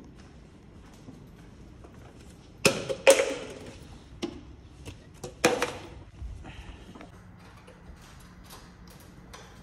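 Several sharp knocks and clicks over a quiet background, the loudest a pair close together about three seconds in and another about five and a half seconds in.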